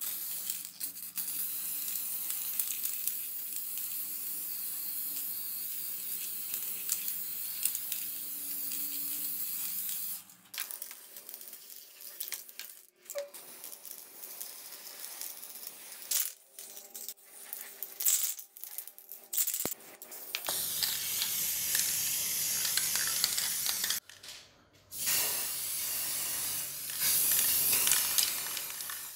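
Aerosol spray-paint can hissing as it coats cast-iron air-compressor parts with paint. The spray runs in long steady bursts, turns into short on-and-off bursts through the middle, and breaks off for about a second near the end.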